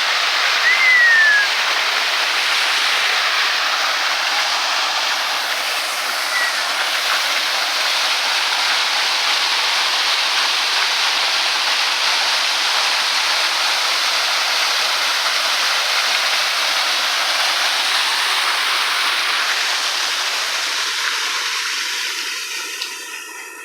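Waterfall rushing in a steady, loud, even roar of falling water, with a single short falling whistle about a second in. The water sound drops away near the end.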